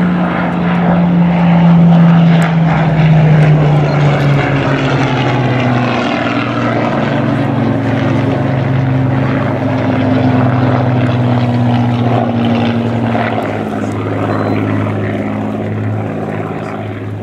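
Hawker Hurricane's Rolls-Royce Merlin V12 engine and propeller passing in a flypast. The engine note drops in pitch over the first few seconds as the plane goes by, loudest about two seconds in, then runs on steadily and slowly fades toward the end.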